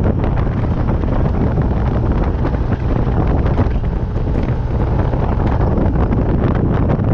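Loud, steady wind buffeting the microphone of a moving vehicle, with vehicle noise underneath.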